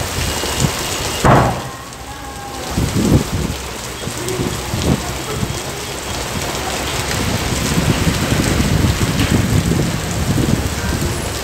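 Heavy rain pouring down onto pavement, standing water and parked cars as a loud, steady hiss, with a few low thumps in the first three seconds.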